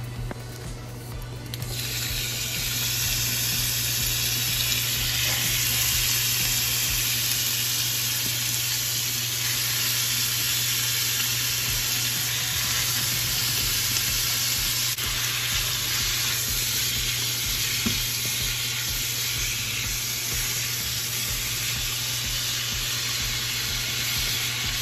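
Diced, partly frozen beef dropped into hot oil in a nonstick frying pan, the sizzle starting suddenly about two seconds in and then going on steadily as it fries. A spatula stirs the beef near the end.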